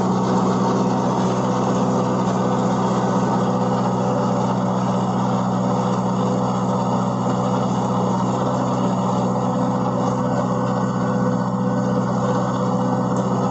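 Kubota MU4501 tractor's four-cylinder diesel engine running steadily under load, driving a rotavator through the soil, with the churn of the tiller blades in the soil mixed in. The engine's pitch holds even, not dropping or rising.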